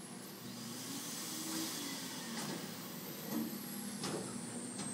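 Vending machine's vacuum suction arm running: a steady motor hum and airy hiss of suction as the nozzle grips an ice cream and lifts it, with a few clicks from the arm mechanism in the second half.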